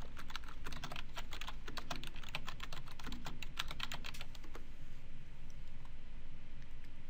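Typing on a computer keyboard: a quick run of keystrokes that stops a little past halfway through, over a steady low hum.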